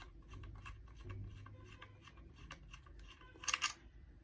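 Light plastic clicks and rattles of a bike phone holder's quick-release base being handled as its buckle is released, with a louder pair of clicks about three and a half seconds in.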